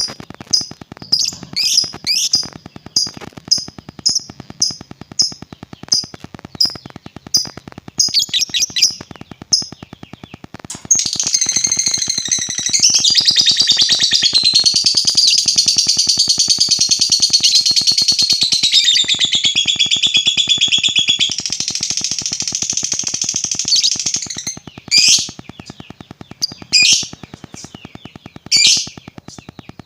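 Lovebird calling: short sharp high chirps about twice a second, then a long, unbroken high-pitched rattling trill of about thirteen seconds (the 'ngekek panjang' long trill prized in Indonesian contest lovebirds), then a few spaced chirps near the end.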